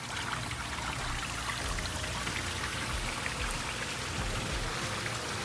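Steady hiss and patter of water.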